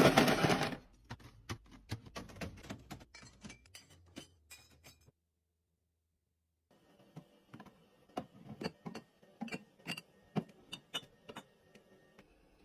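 Items being handled and set down while a refrigerator is organized: a rustling, scraping burst at the start, then light clicks and taps of containers and packaging, in two runs broken by a sudden silent gap.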